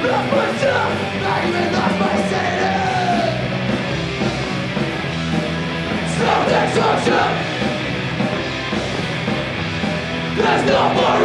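Punk rock band playing live at full volume, with yelled vocals coming in at the start, about six seconds in and again near the end.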